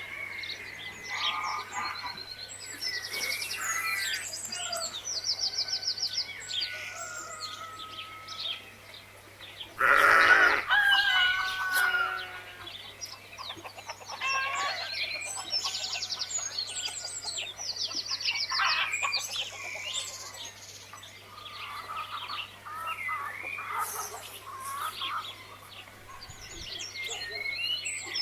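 Farmyard birdsong: many small birds chirping and trilling, mixed with chicken calls, with one louder call about ten seconds in. A faint steady low hum runs underneath.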